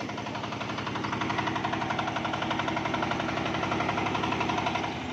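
Single-cylinder Matsumoto diesel engine running steadily on a homemade sawmill, with an even, rapid knocking beat.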